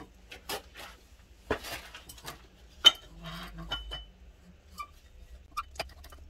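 Metal clinks and knocks as a new clutch release plate is fitted inside a gearbox bell housing, the sharpest knock about three seconds in with a short metallic ring just after.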